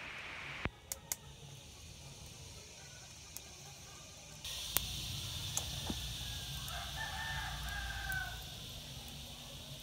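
A rooster crows once, faintly, about seven seconds in, over a steady low hiss. A few sharp clicks sound in the first second or so.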